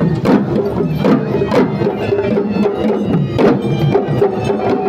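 Live Sri Lankan traditional procession drumming: sharp, irregular drum strokes over a dense, steady held tone.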